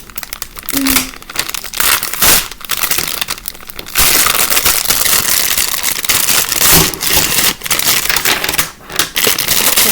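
Plastic packaging crinkling as it is handled and opened, scattered crackles at first, then continuous dense crinkling from about four seconds in.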